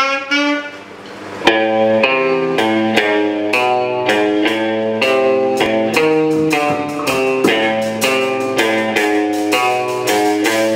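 Live instrumental band playing: electric guitar, saxophone, upright bass and drums. After a short opening phrase and a brief drop in level, the full band comes in with a loud hit about a second and a half in. It then keeps a steady pulse of repeated guitar-led notes.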